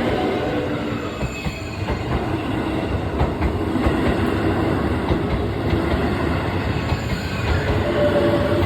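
Hokuso 9100-series electric train running past at close range: steady rumble of wheels on rail with a sustained tone that falls slightly in pitch near the end.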